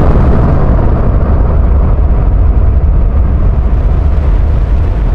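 Deep, continuous rumble of a large explosion just after the blast, its higher part slowly dying away while the low roar holds.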